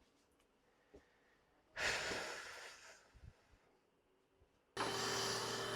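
A long, heavy sigh that fades away over about a second. Near the end a motor starts suddenly and keeps running with a steady hum.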